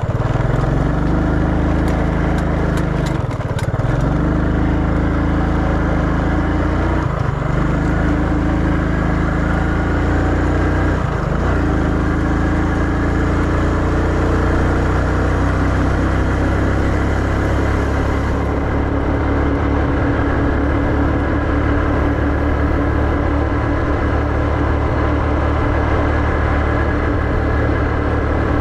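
Small step-through motorcycle engine running under way. Its note drops and climbs back three times in the first dozen seconds as it changes up through the gears, then holds steady at cruising speed.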